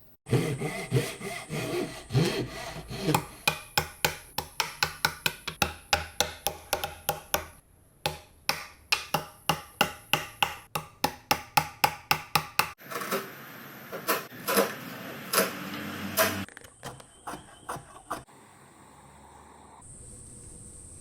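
Hand saw cutting wood in quick, even strokes, about three a second, for some twelve seconds with a brief pause midway. This is followed by a few seconds of steady scraping on the wood, then fainter scattered taps.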